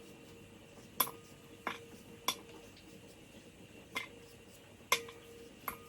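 About six sharp, irregular clicks and taps of a metal kitchen utensil against dishes, some with a faint ring, while potatoes are being peeled.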